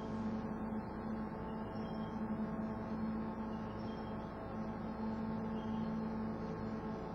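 Steady low drone made of several held tones over a background hiss, the lowest tone dropping out briefly about four seconds in.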